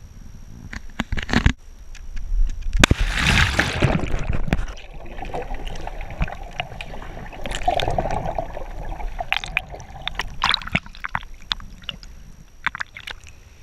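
Water sloshing and splashing around a small boat at the water's edge, with knocks and scrapes against the hull. The loudest splashing comes about three seconds in, and there is a second burst near the middle.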